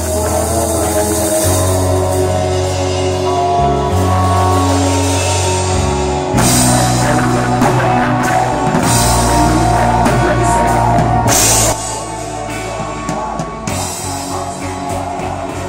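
Live rock band playing loud, led by a drum kit with cymbals and an electric bass moving between low notes. The band gets louder about six seconds in and drops back a little just before twelve seconds.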